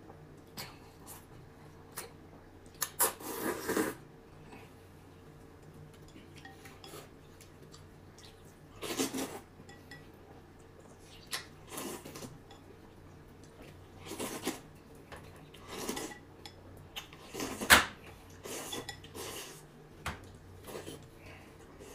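Dishes and utensils clattering and scraping in short, irregular bursts every second or few, with a few sharp clinks in between, as in kitchen work.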